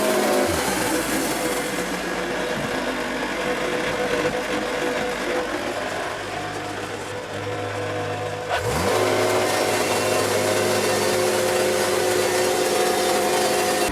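Wood-Mizer LT70 band sawmill running steadily while milling yellow pine, with a short rising sweep in pitch about half a second in and again about nine seconds in.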